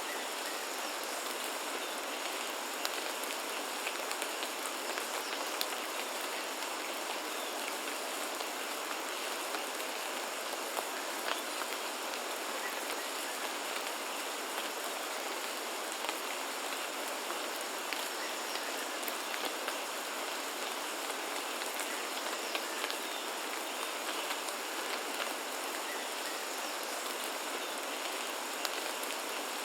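Steady rain falling, with scattered individual drops ticking through the hiss.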